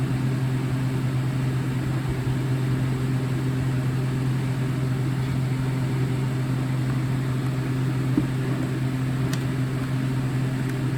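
Steady low hum of background machinery, unchanging throughout, with two faint clicks late on.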